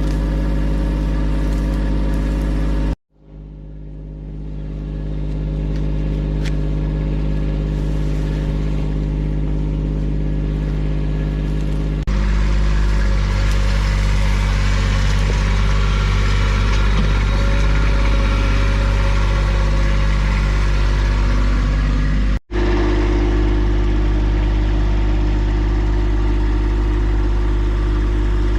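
An engine running steadily at a constant speed, heard in separate clips: it cuts out about three seconds in and fades back up, changes to a louder, hissier sound a little before halfway, and cuts briefly again about two-thirds of the way through.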